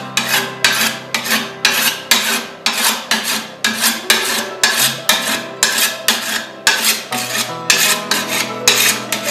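A whetstone drawn quickly along a steel scythe blade in alternating strokes, about two or three rasping scrapes a second: the blade being honed.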